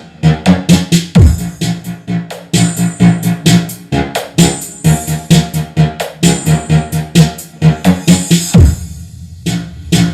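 Electronic DJ remix with a fast, driving drum-machine beat, played loud through a home mini sound system with a scoop-type subwoofer box. Deep bass sweeps fall in pitch about a second in and again near the end.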